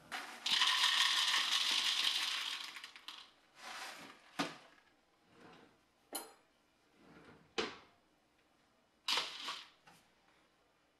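Dry cereal pouring into a plastic bowl, a dense rattle lasting about two and a half seconds, followed by several separate knocks and clinks on the counter and bowl.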